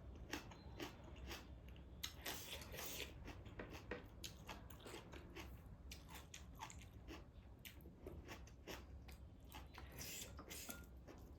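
Close-miked chewing and eating sounds: faint, irregular wet smacks and soft crunches of a person biting and chewing a meal of taro root with dried meat.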